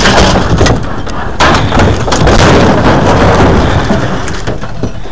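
Scrap metal being shoved out of a truck bed, scraping along the bed and crashing onto the pile with many loud clattering knocks. The heaviest scraping and crashing runs from about a second and a half in to about four seconds.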